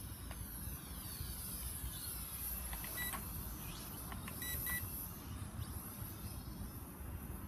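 Short electronic beeps, a pair about three seconds in and a quick run of three about a second and a half later, over a steady low rumble of wind and traffic; a faint whine falls in pitch during the first few seconds.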